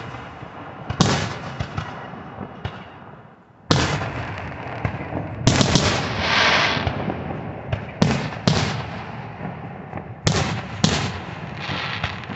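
Aerial firework shells bursting overhead: about eight sharp bangs at irregular spacing, each trailing off into a rolling echo, with a stretch of hissing crackle about halfway through.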